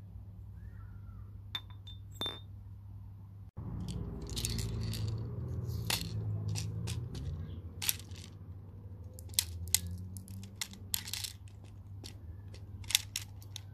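Irregular small clicks, clinks and rattles of a King Arms M1A1 carbine CO2 airsoft magazine being handled and loaded by hand, busiest in the second half, over a steady low hum.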